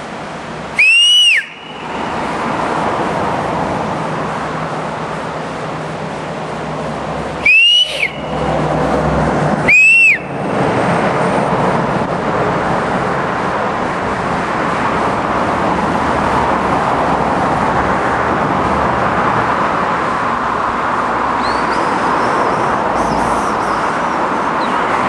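Three short, loud whistles, each rising and falling in pitch. They come about a second in, then twice close together near eight and ten seconds. Under them runs a steady rushing background noise.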